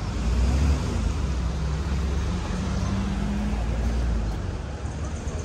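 Low engine rumble of a motor vehicle passing close by, loudest about half a second in and easing off after about four seconds.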